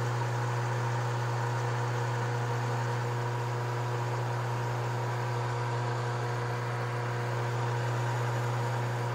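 Metal lathe running steadily while turning down a delrin plastic rod, a constant motor hum with a few faint steady whining tones above it.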